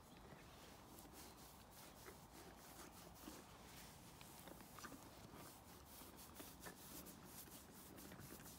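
Faint scratchy rustling with soft irregular clicks: a hand rubbing and stroking a horse's coat close to the microphone.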